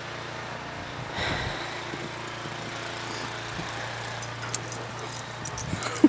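Snowblower engine running steadily as a low hum, with a brief swell about a second in and scattered light clicks in the last two seconds.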